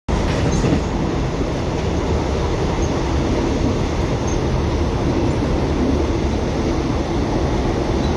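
Train running along the rails: a loud, steady rumble with faint, short high squeaks now and then.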